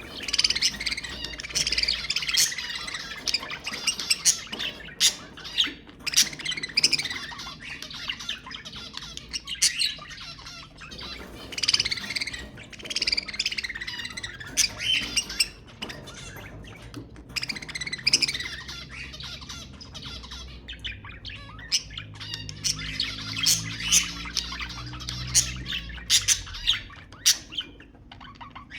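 Budgerigars chattering and squawking: a busy, continual mix of warbles, chirps and sharp calls.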